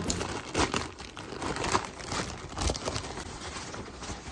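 Thin plastic delivery mailer bag crinkling and rustling in uneven bursts as hands rummage in it and pull a cardboard box out.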